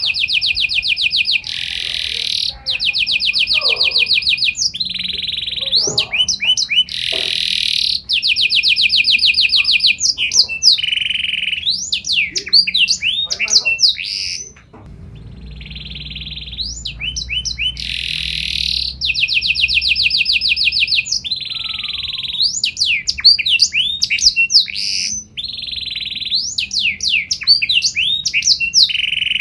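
Domestic canary singing a long, loud song: fast rattling trills and rolls alternating with quick swooping whistled notes. The song breaks off briefly about halfway through, then picks up again.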